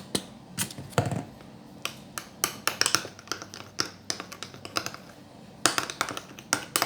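Light, irregular clicks and taps against a mixing bowl, in quick clusters, as slime activator is poured in and worked into the glue mixture.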